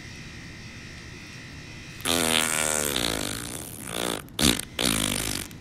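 A long, buzzy fart about two seconds in that wavers down and up in pitch, followed by a few short sputtering bursts.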